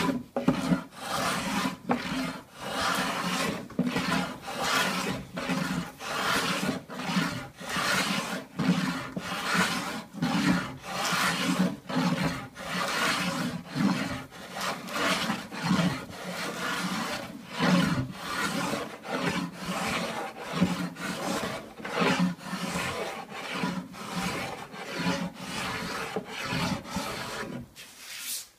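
Japanese hand plane (kanna) shaving a wooden tabletop in short repeated strokes, about one a second, as the top is finish-planed. The strokes stop just before the end.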